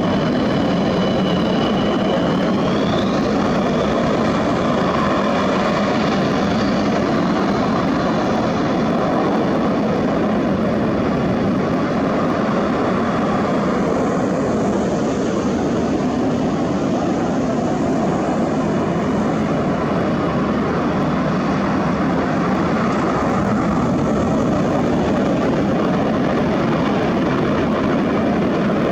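Twin Klimov RD-33 turbofans of MiG-29 fighters running at high power: a loud, steady jet noise with a high whistle that rises in pitch about three seconds in and fades away about halfway through.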